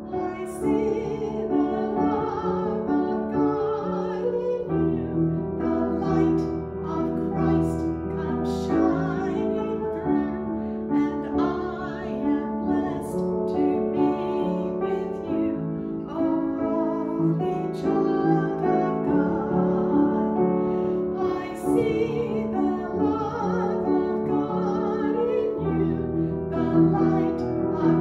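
A woman singing a song with upright piano accompaniment.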